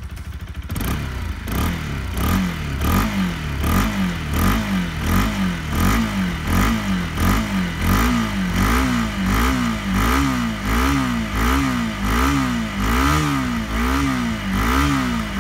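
Bajaj Pulsar RS200's single-cylinder fuel-injected engine, still cold after a cold start in snow, idling and then, about a second in, revved in quick repeated throttle blips, each rising and falling, about one every three-quarters of a second.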